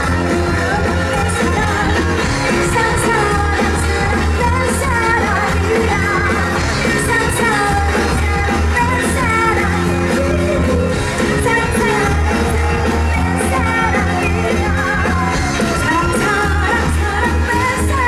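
A woman singing a Korean pop song live into a microphone over backing music with a steady, repeating bass line.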